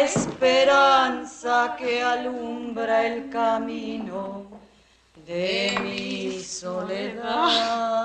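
A single voice singing slow, long-held notes with a slight waver, in two phrases with a short pause about halfway.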